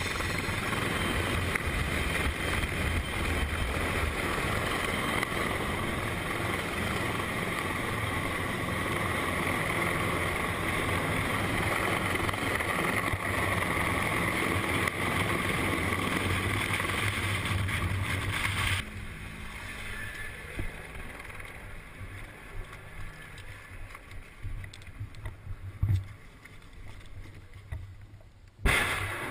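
Helicopter rotor wash and engine noise: a steady loud rush with wind buffeting the microphone, which cuts off abruptly about two-thirds of the way through. After that the sound is quieter, with a couple of sharp knocks near the end.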